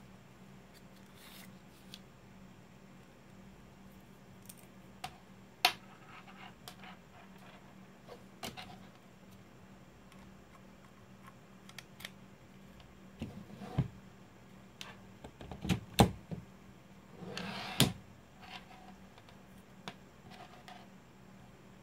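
Small objects handled on a wooden tabletop: scattered clicks, taps and rustles as a USB charging cable and a small cardboard box are picked up and set down, with a few sharper knocks. A faint steady hum underneath.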